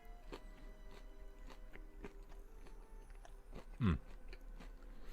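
Close-miked chewing of chicken strips: many small, soft crunches and mouth clicks. About four seconds in there is one short, louder sound that falls in pitch.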